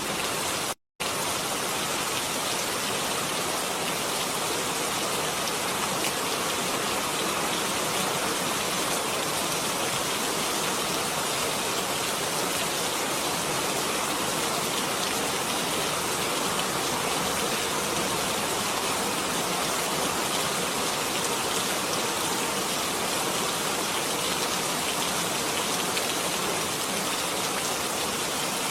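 Steady, even rain falling. The sound cuts out for an instant about a second in, then carries on unchanged.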